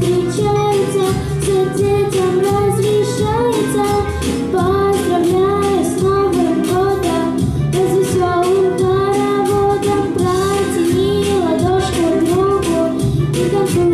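A young girl singing a New Year pop song into a handheld microphone, amplified, over instrumental accompaniment with a steady beat.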